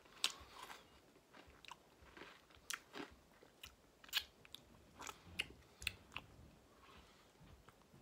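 Close-up chewing and mouth smacking while eating Oreo Blizzard ice cream with Oreo cookie pieces, with a dozen or so short, sharp clicks and smacks at irregular intervals.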